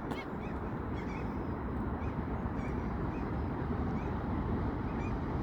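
Birds calling over and over in short, arched cries, several a second, above a steady low rumble.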